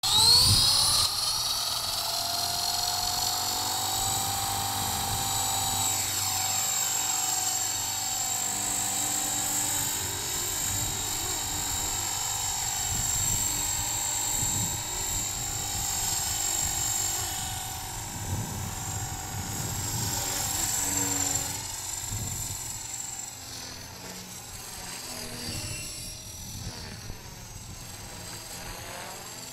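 Electric Blade CP Pro RC helicopter with a Feigao brushless motor spooling up with a quick rising whine, then holding a steady high motor whine and rotor buzz in flight. Later the pitch wavers up and down, and the sound grows fainter near the end as the helicopter flies farther off.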